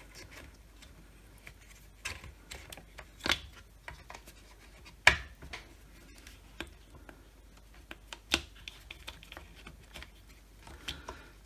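Handling noise from hands fitting a trigger switch and tucking wires into the plastic housing of a cordless circular saw: light rubbing and scraping with scattered sharp plastic clicks and knocks, the loudest about five seconds in.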